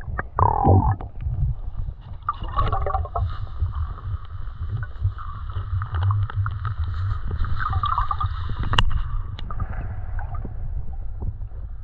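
Water sloshing and gurgling, heard muffled from just under the surface. A constant low rumble runs underneath, with scattered small clicks and bubbling.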